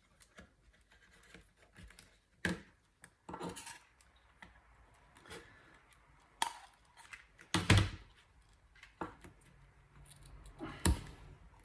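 Scattered clicks, taps and light knocks of small tools and laptop parts being handled as the trackpad is taken out of a MacBook Air palm rest. The loudest knocks come about two-thirds of the way in and again near the end.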